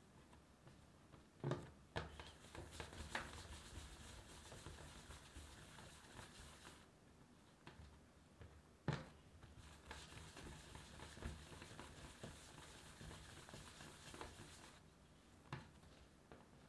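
Faint rubbing of hands rolling small balls of bread dough against a work surface, with a few soft taps as balls are set down, the clearest about a second and a half in and about nine seconds in.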